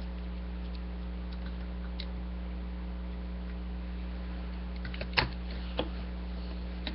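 Steady electrical hum with faint ticking, then two sharp clicks about five and six seconds in as hard plastic toy parts are snapped together.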